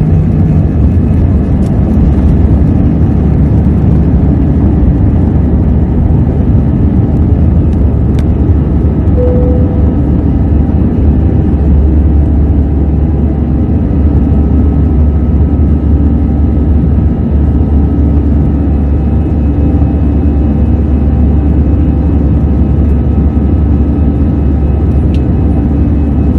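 Jet airliner heard from inside the passenger cabin: a loud, steady low rumble of engines and airflow, with faint steady tones above it.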